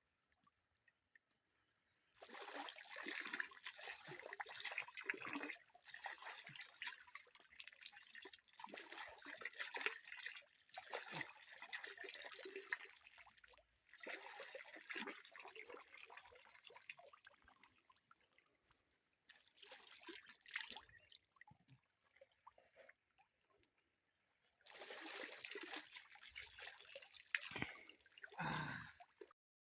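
Water splashing and trickling in irregular bursts with short pauses as someone washes in a river, cutting off suddenly near the end.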